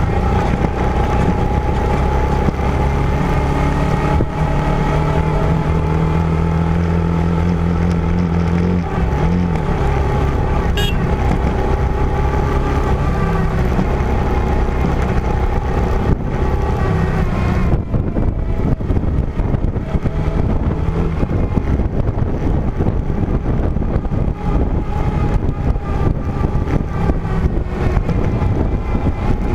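A vehicle engine running steadily while driving over an off-road trail. Its pitch holds a little higher for a few seconds about five seconds in, over constant rough noise from the ride.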